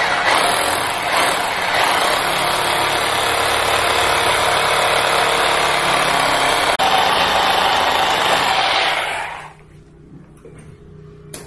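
Rotary hammer drill with a 12 mm masonry bit boring a hole into a masonry wall, running steadily for about nine seconds with a brief break near seven seconds, then stopping as the bit is withdrawn.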